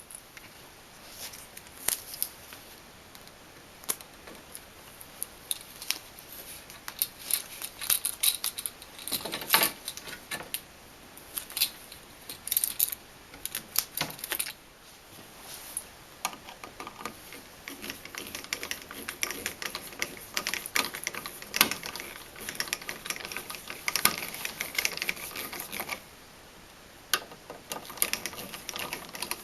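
Irregular clicks, taps and rattles of electrical outlets and their wiring being handled while electrical tape is wrapped around the outlets' screw terminals.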